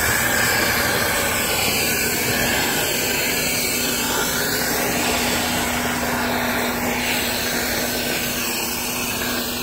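Dryer-vent cleaning equipment running steadily: a constant rush of air with a steady motor hum.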